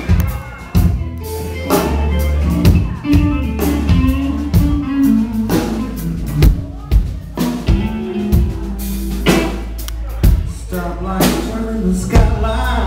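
Live band playing: electric bass, drum kit and electric guitars, with a heavy bass and repeated drum hits.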